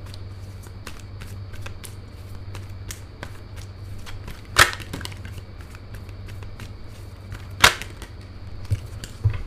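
A tarot deck being shuffled by hand: a run of light card flicks and clicks over a low steady hum, with two much sharper card slaps about halfway through and about three-quarters of the way through.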